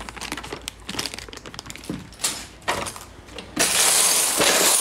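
Small crystals and tumbled stones clicking and knocking against each other as they are handled. Near the end this turns into a louder, continuous clattering rattle of many stones being stirred in the basket.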